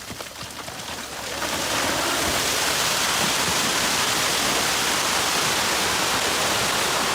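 A steady rushing noise of water that swells about a second and a half in, then holds level.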